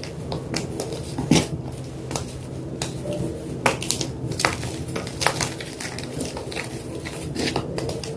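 White gym chalk being crushed, crunching and crackling in irregular sharp snaps a second or so apart, with a few louder cracks.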